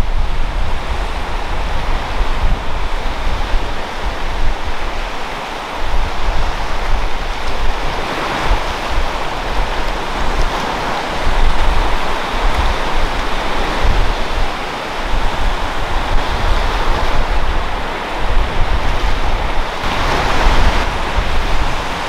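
Small waves breaking and washing up on a sandy shore: a continuous surf hiss that swells several times as waves come in. Underneath is a low, gusting wind rumble on the microphone.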